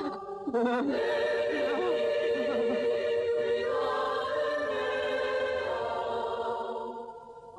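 Choir singing held chords on a horror film soundtrack, with wavering voices; it fades away near the end.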